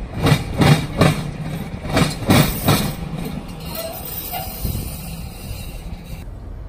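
TECO Line streetcar passing, its wheels clunking heavily over the track: about six clunks in two groups of three in the first three seconds, over a low running rumble that fades as it moves off.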